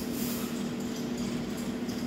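Steady machine hum: one low, even tone with a hiss above it that swells and fades.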